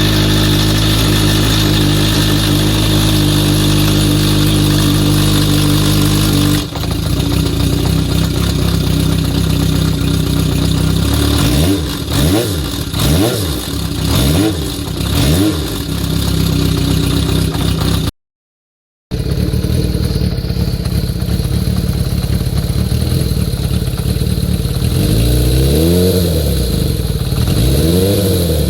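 Kawasaki Zephyr 400's air-cooled inline-four engine idling and blipped, four quick revs about halfway and two more near the end, in two recordings split by a brief gap of silence. It is being listened to for cam chain noise, compared around taking up the notch-type cam chain tensioner about two notches.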